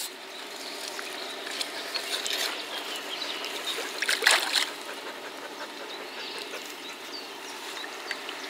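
Water sloshing and trickling as a carp is put back into the lake, with a louder splash about four seconds in.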